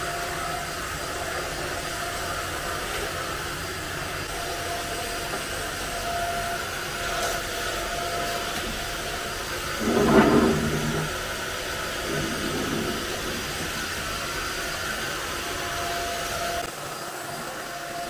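Deerma stick vacuum cleaner running steadily, a high whooshing hiss with a faint held tone, as it is pushed across a tiled floor. About ten seconds in, something is louder for about a second.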